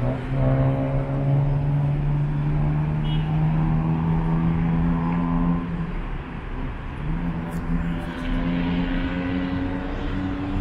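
City road traffic with a heavy vehicle's engine running at a steady pitch. The engine note drops away about six seconds in and returns a second later.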